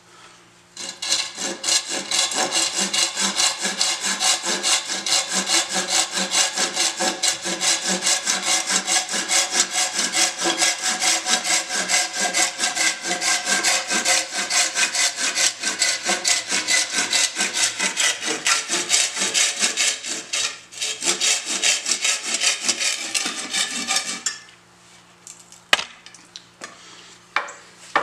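Folding pruning saw cutting through an old wooden axe handle just under the head, in quick, steady back-and-forth strokes. The sawing breaks off briefly about two-thirds through, stops a few seconds before the end, and is followed by a few light clicks.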